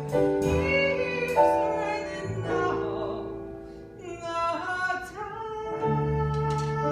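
A woman singing long held notes with vibrato over instrumental accompaniment with a steady bass line.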